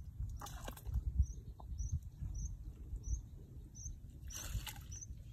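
Hands groping in shallow muddy ditch water, with louder splashes about half a second in and again near the end, over a low rumble. A small bird chirps steadily, about two to three short chirps a second.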